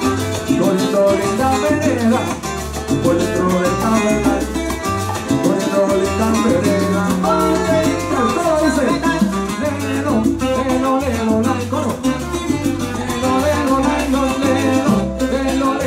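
Live salsa-style Puerto Rican music: a plucked cuatro over a low bass line and light percussion, with a man singing into a microphone.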